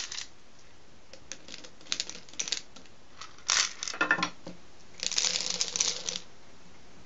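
Small aspirin tablets clicking and clattering as they are handled and dropped back into the bottle. There are scattered clicks at first and a couple of louder clatters midway, then a dense rattle lasting about a second near the end as a handful goes into the bottle.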